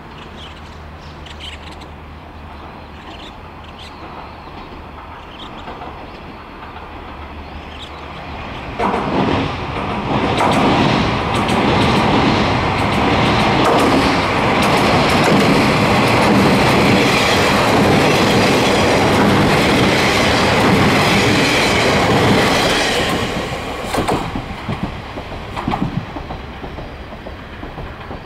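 Four-car KiHa 40-series diesel multiple unit: first a low, steady diesel engine drone as it approaches, then from about nine seconds in a loud rumble with rail-joint clickety-clack as it passes close over a steel girder bridge. About twenty-three seconds in it fades away, with a few last wheel clacks.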